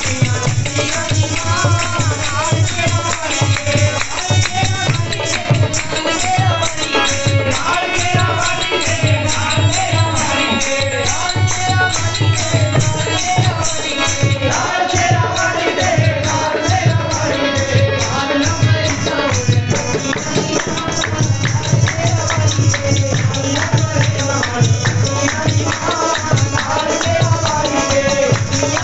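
Indian devotional music: a fast, steady beat of drum and jingling percussion under a wavering melody.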